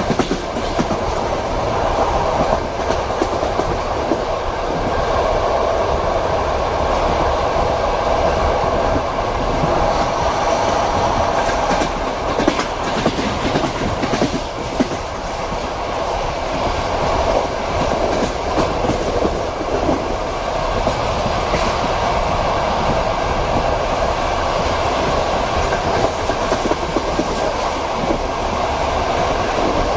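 Passenger train heard from inside a compartment: a steady rolling rumble with the clickety-clack of the wheels over the rail joints.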